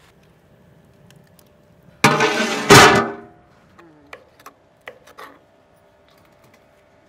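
A sudden loud ringing sound about two seconds in, lasting about a second, then a few sharp knife chops on a wooden chopping block as green beans are cut.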